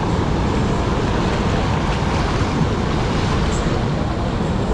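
Fast, muddy water rushing and churning through a concrete channel, a loud, steady, unbroken rush close below the microphone.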